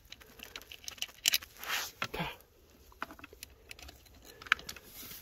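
Light clicks and rustling from a hand handling wires and ring terminals at a car battery terminal, with scattered small ticks and a couple of short rustling swells about a second in.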